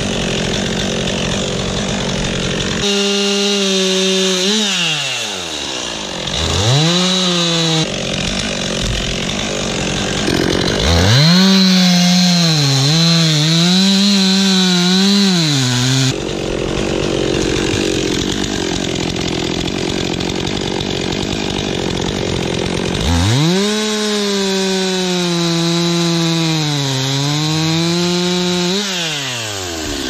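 Stihl chainsaw bucking a dead maple log into rounds. The engine runs at high revs, its pitch rising, wavering and dipping as the chain works through the wood, with a few abrupt jumps in the sound.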